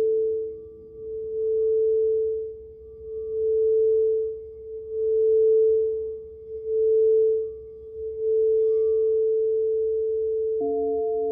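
Crystal singing bowl sounding one pure, sustained tone that swells and fades in a slow regular pulse about every second and a half, then holds and slowly dies away. A lower tone fades out in the first second, and near the end two more tones, one lower and one higher, come in suddenly as another bowl is sounded.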